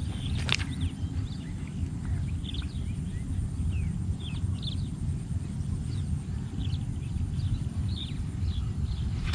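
Wind buffeting the microphone as a steady low rumble, with scattered short high chirps of small birds throughout and a single sharp click about half a second in.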